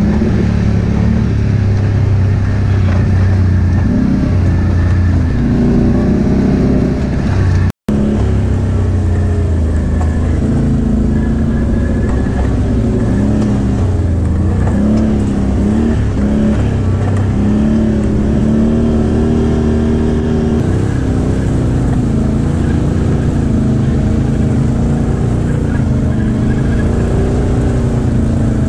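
Can-Am Outlander ATV engine running under the rider, its pitch rising and falling with the throttle; in the first several seconds it is engine braking down a slope. The sound cuts out for an instant about eight seconds in.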